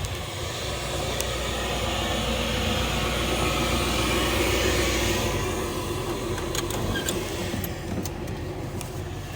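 A vehicle engine idling steadily, with a few sharp clicks near the end.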